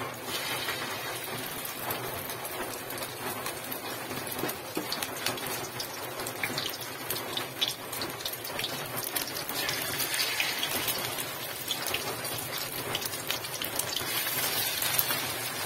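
Egg batter with small bulinaw fish and malunggay leaves frying in hot oil in a wok: a steady crackling sizzle with many small pops as spoonfuls go into the oil.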